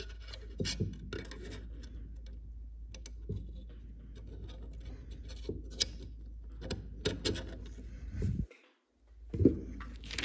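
Small metal clicks and light rubbing from a steel AK magazine catch being handled and seated against the receiver for a test fit, scattered and uneven.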